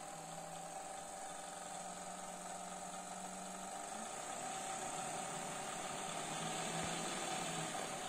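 Electric motor and fan of a 1920 AEG Radiopur hair dryer running up as the supply voltage is turned up, a steady whirring hum that gradually gets louder. This is its first run after restoration.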